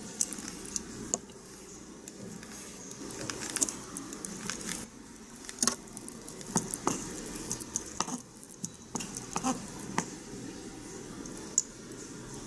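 Irregular small clicks and light taps of tiny utensils and dishes being handled in miniature cooking, over a faint steady hiss.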